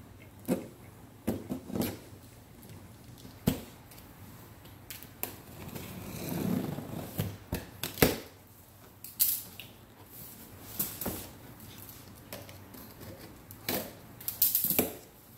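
A cardboard vacuum-cleaner box being handled and opened: scattered knocks and taps, two sharper ones about three and a half and eight seconds in, with a longer scraping rustle of cardboard around six seconds in.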